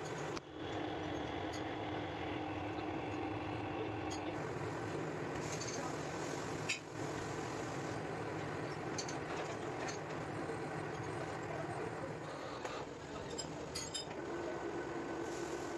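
Metal lathe running steadily under power, its motor and drive humming while it turns a round gear blank, with a few light metallic clicks near the end.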